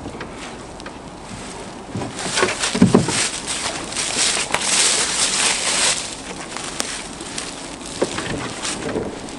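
Oak firewood rounds thudding down into a utility vehicle's cargo bed, two heavy knocks about a second apart and another near the end, with footsteps crunching through dry leaves.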